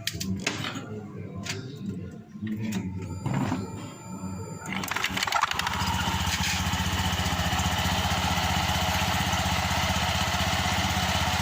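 Several clicks and knocks, then a scooter's small single-cylinder engine starts about five seconds in and idles steadily with an even pulse. The rear clutch's needle bearings have just been replaced, and there is no rattling in the sound.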